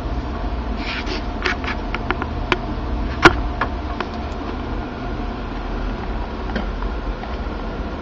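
Steady low hum of a desktop PC running as it boots, with a run of short, sharp clicks about one to four seconds in, the loudest about three seconds in, and one more near the end.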